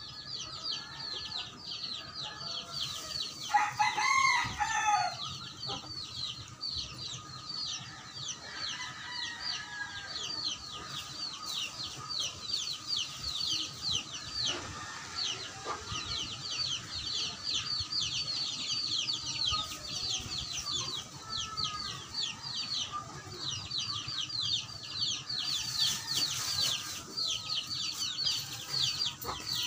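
A rooster crows once, loudly, about three and a half seconds in. Under it, a rapid high chirping runs on without a break.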